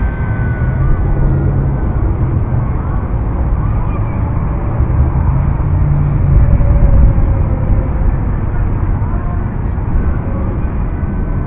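Steady outdoor rumble dominated by deep low noise, with the faint whine of a micro RC helicopter's motors wavering up and down in pitch as the throttle changes.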